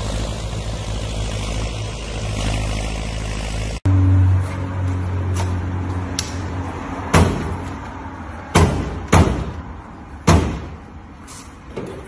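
A tractor engine runs steadily for the first few seconds, then cuts off abruptly. After that, the trunk lid of an old sedan is banged down again and again: half a dozen loud separate bangs, a second or so apart.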